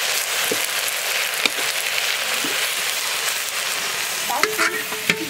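Chopped leafy greens sizzling in a metal wok over a wood fire, stirred with a metal ladle that clicks against the pan a few times. Near the end a metal lid is set on the wok, with a brief metallic scrape and ring.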